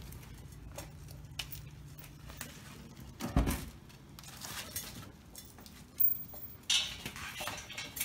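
Scattered light metal clinks and knocks from exhaust pipes, flanges and bolts being handled on a concrete floor, with one louder dull thump about three seconds in and a short rustling noise near the end.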